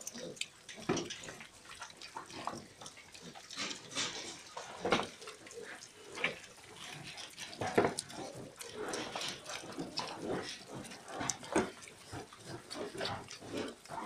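Several young pigs grunting in short, irregular bursts as they move and feed around the pen.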